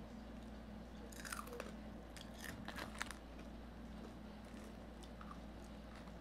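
Crispy fried chicken crust crunching faintly, with a few quick crackles about a second in and more between two and three seconds in, over a steady low hum.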